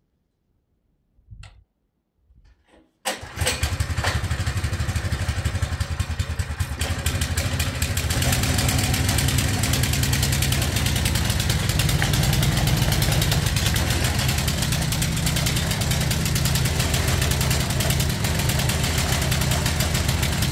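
Small 212cc single-cylinder petrol engine of a walk-behind tiller-cultivator starting: after a few faint sounds it catches suddenly about three seconds in and then runs steadily, getting louder at about eight seconds and holding that level.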